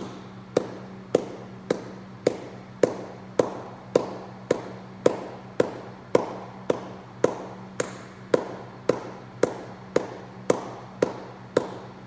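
Hand claps at a steady pace of a little under two a second, setting the rhythm for Kapalbhati breathing, one forceful belly-snap exhale per clap.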